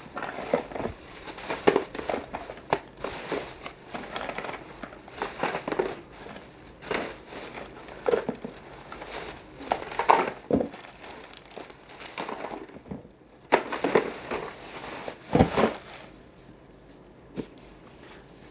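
School supplies and their plastic packaging being handled and packed away: irregular rustling and crinkling with scattered clicks and knocks, which die down near the end.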